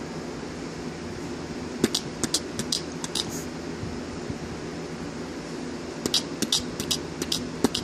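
Two runs of quick, sharp clicks, a few to a second, the first about two seconds in and the second about six seconds in, over a steady room hum.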